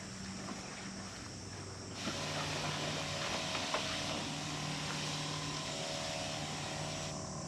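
Battery-powered backpack sprayer's pump running with a steady low hum, and a hiss of fine mist from the spray wand that starts about two seconds in and stops near the end.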